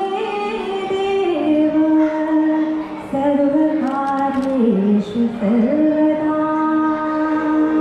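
A woman singing long, held notes that slide slowly up and down between pitches, heard through the hall's sound system.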